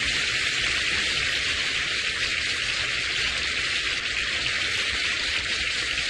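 A steady, even hiss with no clear tone.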